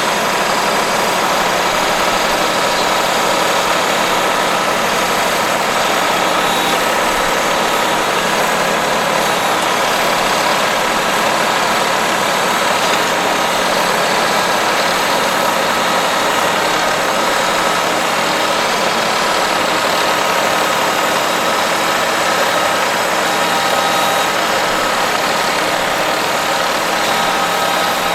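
A tractor engine running steadily at an even pitch.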